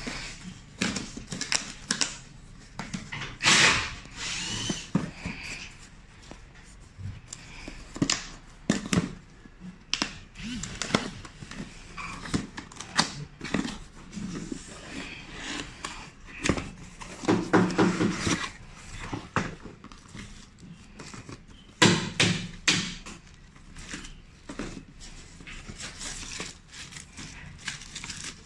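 Unboxing by hand: a cardboard box being opened and its packaging handled, giving an uneven run of knocks, scrapes and rustles, with louder clattering bursts a little past halfway and again about three-quarters through.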